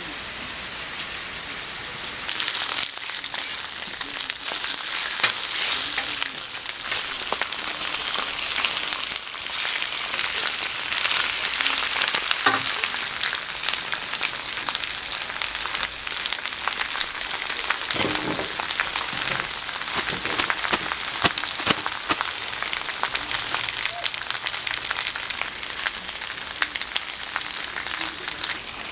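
Pork offal sizzling and crackling on a large iron griddle, a dense hiss full of small pops. It starts suddenly about two seconds in and stops just before the end.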